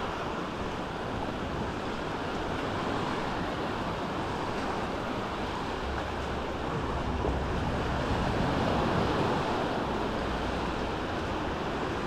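Small sea waves washing steadily onto a sandy beach, with wind buffeting the microphone in gusts about halfway through and again near the end.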